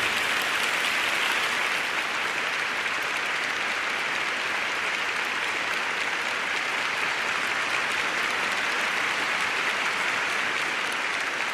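Large studio audience applauding, steady and sustained, with some cheering mixed in.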